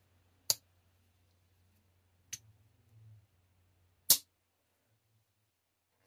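Taylor's Eye Witness Barlow slipjoint pocket knife's blade snapping into place under its backspring: three sharp metallic clicks about two seconds apart, the middle one softer. The snap shows a strong backspring pull, rated about 6.5 to 7.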